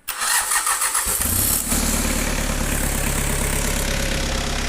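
Diesel engine being started on its electric starter: a short burst of cranking that catches after about a second and a half, then the engine running steadily.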